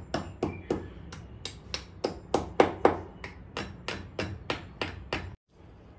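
Hammer striking in quick, regular blows, nearly four a second, driving plugs into freshly drilled holes in a ceramic-tiled wall. The blows stop shortly before the end.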